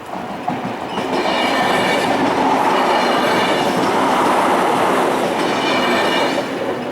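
A Trenord TSR electric multiple unit passes over the level crossing, its wheels running on the rails. The sound swells about a second in, holds steady, and falls away near the end, with a thin high whine as the pass begins and again as it ends.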